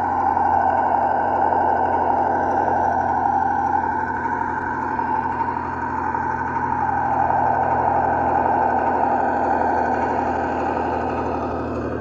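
Simulated ZIL-131 V8 engine sound from the RC model truck's sound unit, running steadily at low revs with an even firing pulse.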